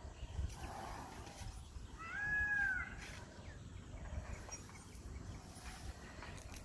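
A single short, high-pitched animal call that rises and then falls, lasting under a second, about two seconds in, over a low rumbling background.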